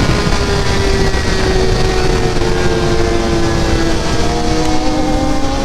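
600 cc sport bike engine running under way at speed, its pitch sinking slowly, with heavy wind rush on the rider's microphone.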